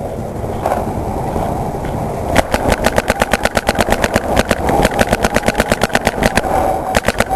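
Paintball marker firing rapidly, a fast even stream of shots at about nine a second for some four seconds, then a short burst of a few more shots near the end. Before the shooting, a steady rushing noise.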